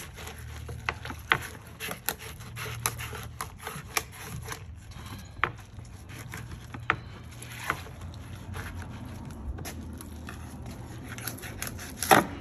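Fillet knife cutting a drum fish fillet away from its rib bones on a bamboo cutting board: irregular small clicks and scrapes as the blade works along and through the ribs, with one louder knock near the end.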